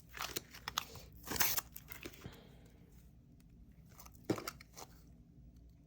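Packaging crinkling and rustling as it is handled, in short bursts, loudest about a second and a half in, then quieter, with one sharp click about four seconds in.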